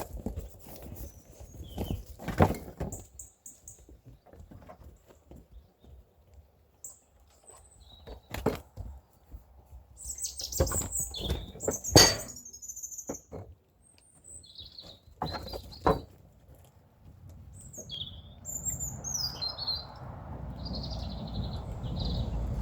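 A string of sharp knocks and clatters at irregular times, the loudest about twelve seconds in, with small birds chirping in between.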